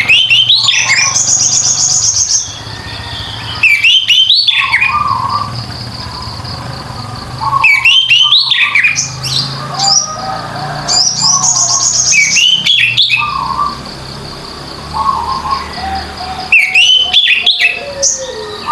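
Orange-headed thrush singing continuously, loud phrases of sweeping whistles and trills repeated about every four seconds with quieter phrases in between.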